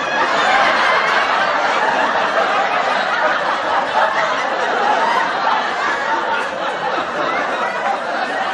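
Canned studio-audience laughter mixed with applause, a dense crowd sound that holds steady and eases off slightly near the end.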